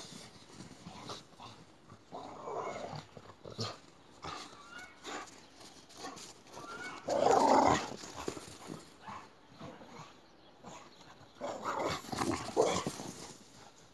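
Two boxer dogs growling in short bursts as they play and tug at a stick, the loudest burst about seven seconds in and others near two and twelve seconds. Between the bursts come short scuffs of their paws in the snow.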